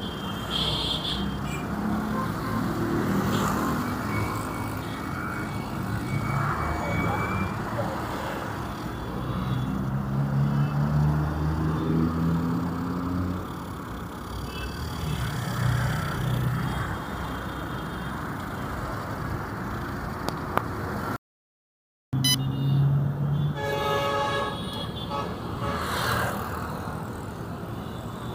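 City street traffic: vehicle engines running and passing, one revving up in pitch partway through, with car horn toots and some voices in the background. The sound drops out completely for about a second near the end.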